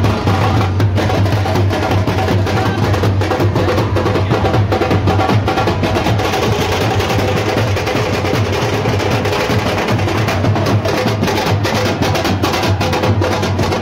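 Loud festival music with fast, dense drumming over a heavy steady bass.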